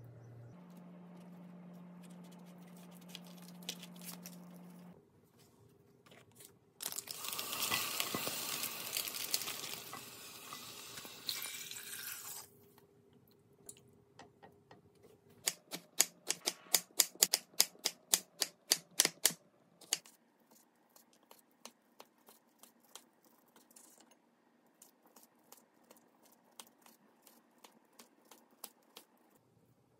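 Kitchen food-preparation sounds: a low steady hum at first, then a loud hiss lasting about five seconds, then a quick run of sharp clicks. Near the end, a knife slices seaweed rice rolls into pieces, its blade tapping lightly and regularly on the cutting board.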